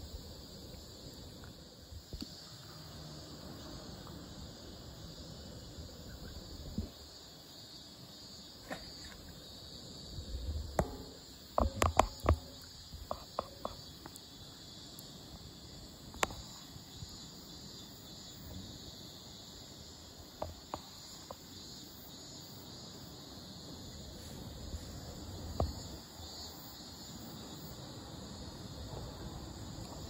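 Faint, steady high-pitched chirring of insects. A quick cluster of sharp clicks and knocks about midway, the loudest sounds, with a few lone clicks before and after.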